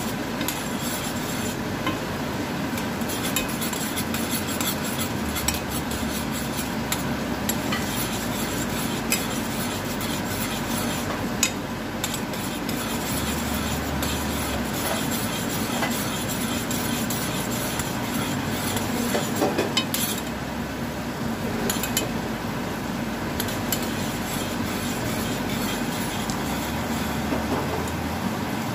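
A metal spoon stirs a boiling sugar glaze in a stainless steel saucepan, with frequent light clicks and scrapes of the spoon against the pan over steady bubbling and a low background hum.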